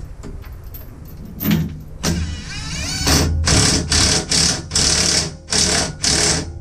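Cordless impact driver tightening a nut on a safety-chain bolt through the steel tow-dolly frame. Its motor spins up with a rising whine, then it hammers in about six short bursts, one after another, as the nut draws down.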